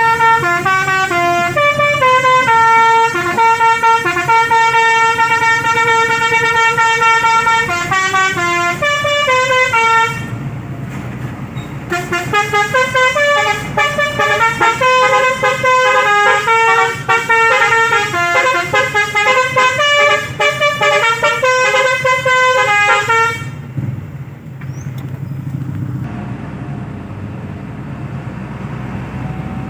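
Basuri melody horn playing a stepping, multi-note tune with several notes sounding together, loud for about ten seconds. After a short break it plays a second tune until about 23 seconds in. Then only a low engine and traffic rumble is left.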